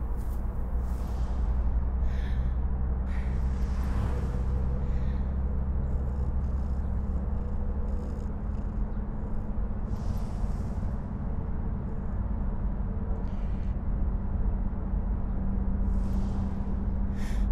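Car driving, heard from inside the cabin: a steady low engine and road drone. Brief hissy sounds come and go over it every few seconds.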